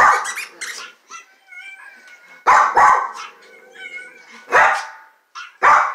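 Small spaniel barking: loud, short barks about two seconds apart, four in all.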